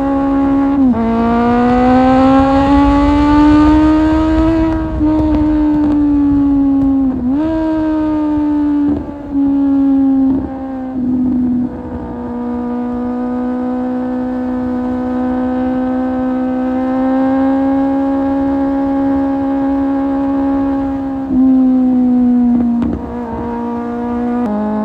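Kawasaki Z750's inline-four engine through an Akrapovic exhaust, heard on board while riding. The engine pulls up through the gears, its pitch rising and then dropping sharply at each upshift (about a second in and again about seven seconds in). It then holds a steady cruise for several seconds, with further shifts near the end.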